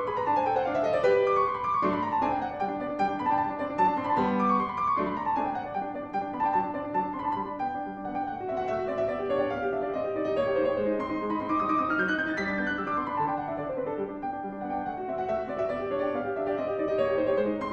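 Steinway concert grand piano played solo: fast classical passagework, with rapid runs of notes falling and rising across the keyboard over held lower notes.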